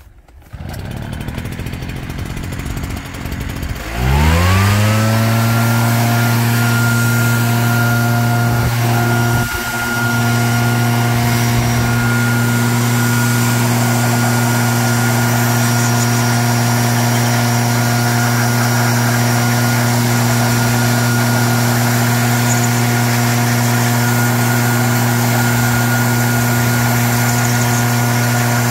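Petrol-engined blower starting up about half a second in, then about four seconds in throttled up, its pitch rising and then holding steady at full speed with a brief dip near ten seconds.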